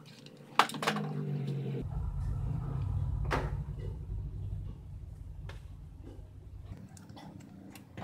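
Corrugated cardboard box being handled on a wooden table: a sharp knock about half a second in and a lighter tap a few seconds later, over a low rumble of handling.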